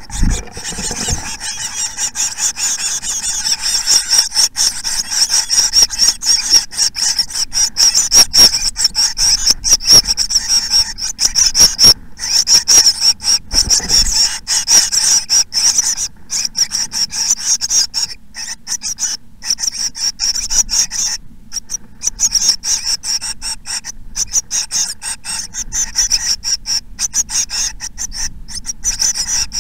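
Blue tit nestlings begging in a nest box: a loud, unbroken chorus of rapid, high-pitched rasping calls. Low thuds of movement in the box near the start and about halfway through.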